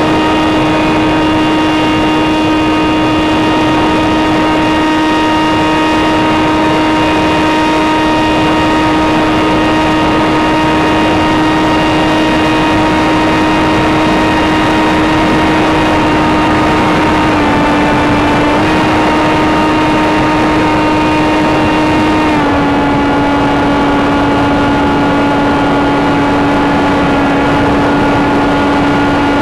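Sky Surfer RC plane's electric motor and propeller running with a steady whine over rushing wind noise. The pitch dips slightly about 17 seconds in, comes back a second later, and drops a little again about 22 seconds in as the motor slows.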